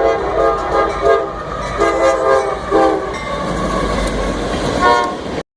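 Nathan K5LA multi-chime air horn on a CSX EMD freight locomotive sounded in a rapid run of short blasts, a playful 'horn show', over the rumble of the passing train. The sound cuts off abruptly near the end.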